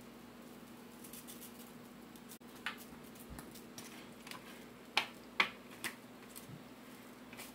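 Hands working seasoning into raw chicken breasts in a disposable aluminium foil pan: soft rustling and a few short sharp crinkles and taps of the foil, three close together about five seconds in, over a low steady hum.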